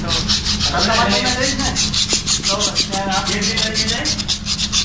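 Abrasive paper rubbed hard back and forth on an induction motor's steel rotor shaft beside the bearing, scouring off rust in quick, even strokes of about six a second.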